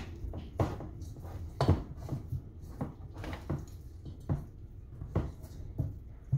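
Irregular knocks and taps from hands handling raw chicken legs and seasoning in a metal pot, about one or two a second.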